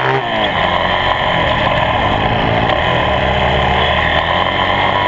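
Honda CRF80F dirt bike's small four-stroke single-cylinder engine being ridden, its pitch rising and falling with the throttle.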